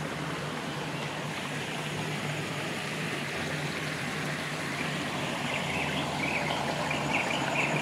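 Stream water flowing and trickling over rocks, a steady even rush.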